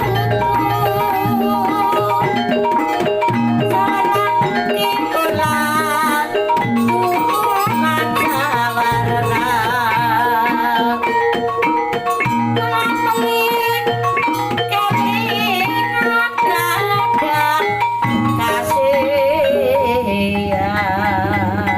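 Javanese kuda lumping-style ensemble music: tuned gongs and metallophones over drums, with a wavering, vibrato-laden melody line on top, playing steadily at a constant loudness.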